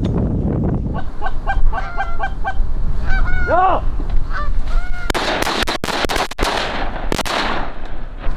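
Geese honking: a quick string of short honks about a second in, then a few longer rising-and-falling honks. About five seconds in, a loud rushing hiss of strong wind on the microphone takes over for a couple of seconds.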